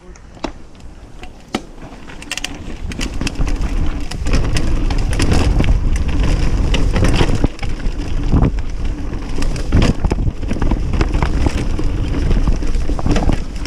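Mountain bike riding down a rough dirt and gravel trail: tyres rumbling over the ground and the bike rattling and clattering on bumps, with a low rushing noise. It grows louder over the first few seconds as speed builds.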